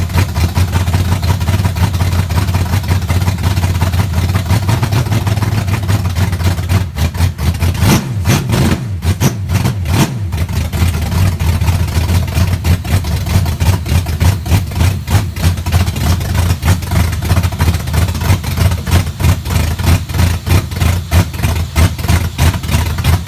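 Freshly built 406 cubic-inch small-block Chevy V8 running on its first start-up, with a loud, uneven pulsing note. The engine is running very rich. The note briefly changes about eight to ten seconds in, and the sound cuts off suddenly at the end.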